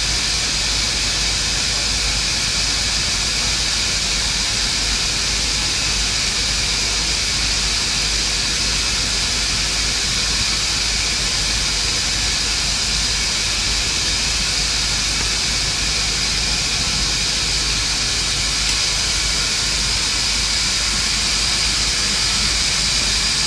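Welding arc on a steel pipe joint hissing steadily and evenly.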